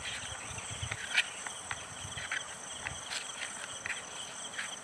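Crickets chirring steadily at a high pitch, with a few faint short scuffs from hands kneading two-part epoxy putty on cardboard.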